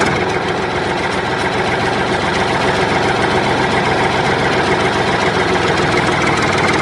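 An engine idling steadily, with an even, fast clatter.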